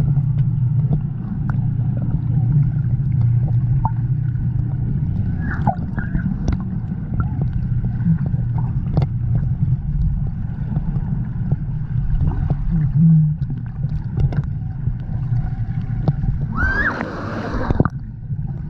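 Water sloshing and gurgling around a GoPro riding a lazy river, a steady low churning with scattered small splashes and clicks. A brief voice is heard near the end.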